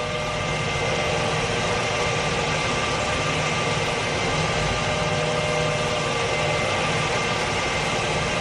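Toy concrete mixer truck running with a steady, unchanging engine-like hum, a few constant whining tones over it.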